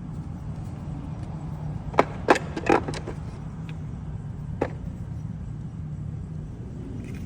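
A few sharp clicks and knocks from the side camera's mount parts being handled and fitted, bunched about two to three seconds in with one more a little past halfway, over a steady low hum.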